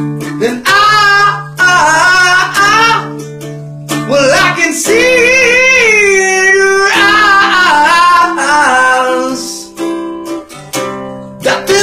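Acoustic guitar playing under a voice singing long, sliding melodic lines. The singing breaks briefly about four seconds in and again near the end.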